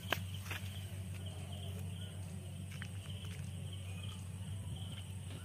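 Outdoor ambience: a steady low hum with insects buzzing high and constant, and a few short clicks, two of them in the first half second.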